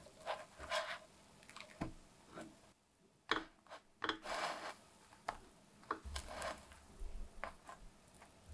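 Plastic slotted spatula scraping and tapping against a non-stick frying pan while sliding under bread and pressing a sandwich down: a series of short scrapes and clicks, the sharpest a little over three seconds in.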